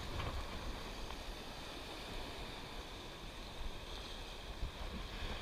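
Surf washing over shore rocks, a steady hiss of moving water.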